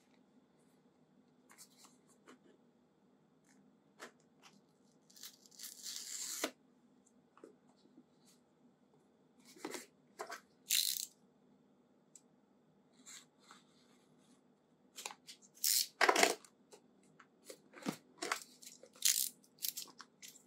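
Phone box and packaging being handled during an unboxing: scattered clicks and taps with short bursts of rustling and tearing, loudest about fifteen to sixteen seconds in.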